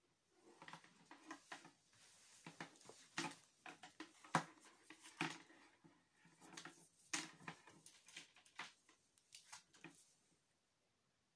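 Handling noise: irregular clicks, knocks and rustles as a charger cable, its plug and the meter leads are moved about on a wooden table, the loudest knock about four seconds in.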